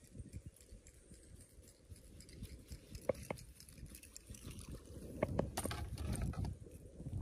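Lake water lapping and trickling against a plastic kayak hull, with a few light clicks and knocks, most of them a little past the middle.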